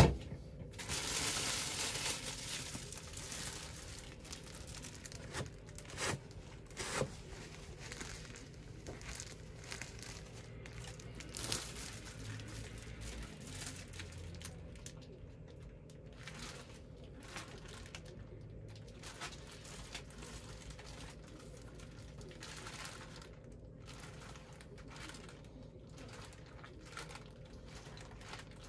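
A plastic bread bag crinkling and rustling as it is handled, in irregular patches, with a few small knocks. There is a sharp knock right at the start.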